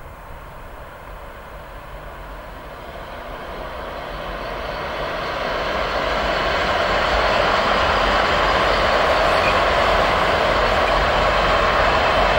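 Colas Rail Class 66 diesel freight locomotive hauling a long train of wagons, growing louder as it approaches over the first several seconds. It then passes close by, followed by the steady noise of the wagons rolling along the track.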